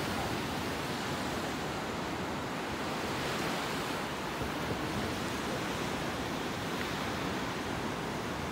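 Ocean waves breaking along the shore, a steady rushing wash of surf.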